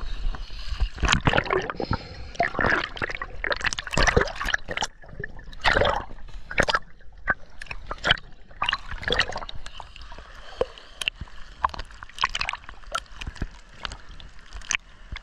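Sea water splashing and gurgling in irregular surges.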